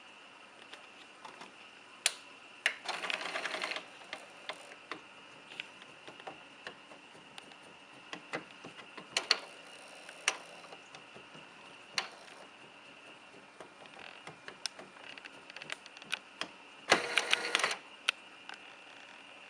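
Epson T50 inkjet printer mechanism knocking and clicking at irregular intervals, with two short bursts of rapid clattering, about three seconds in and near the end, over a faint steady high whine. The knocks are unexplained; the owner is asking what is causing them.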